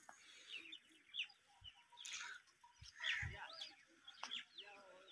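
Birds chirping in short rising and falling calls, with a chicken clucking. A few dull low thumps come in the middle.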